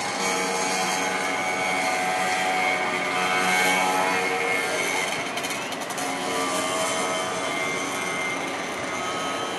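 Steady engine drone with a mix of held tones, its level rising a little about three to four seconds in.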